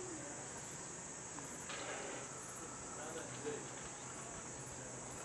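Crickets chirring steadily in a continuous high-pitched trill, with faint low voices talking quietly.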